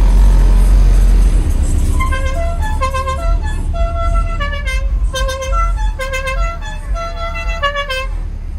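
A multi-note musical car horn plays a quick tune of short stepping notes for about six seconds, starting about two seconds in, over a heavy low rumble.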